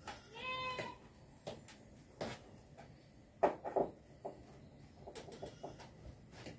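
A short animal call about half a second in, followed by scattered clicks and knocks from work on the wall-mounted solar equipment and its wiring. The loudest is a pair of knocks about three and a half seconds in.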